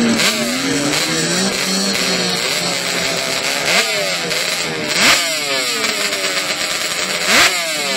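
ATV racing engines revving and accelerating on ice, their pitch climbing sharply and then falling several times, with loud swells about five seconds in and again near the end.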